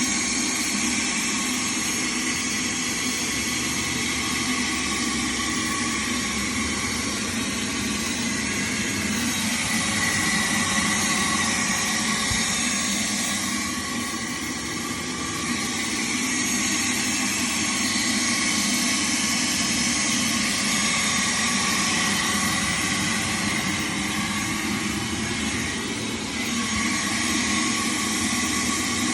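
Shop vac running steadily, sucking the air out of a foam cushion wrapped in plastic furniture film; the noise dips briefly twice.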